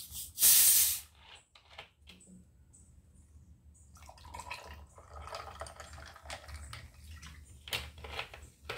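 Orange soda poured from a plastic bottle into a glass of ice cubes. There is a loud burst of hissing and splashing about half a second in, then from about four seconds on a longer, quieter stretch of pouring and fizzing with a few clicks.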